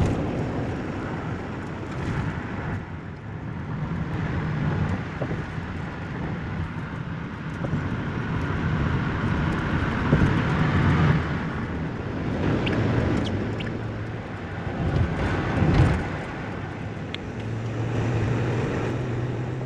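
Steady road noise and a low engine drone heard inside a truck's cab while driving at highway speed.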